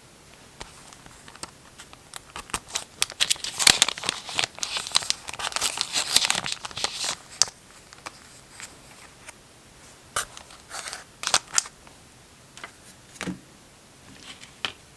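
Paper being handled, crinkled and torn for journal collage: a dense crackling run of a few seconds starting about two and a half seconds in, then a few scattered rustles and taps.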